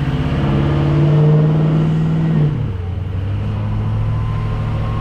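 Pickup truck engine pulling in four-wheel-drive low. Its note climbs a little, then drops about halfway through and runs on steadily.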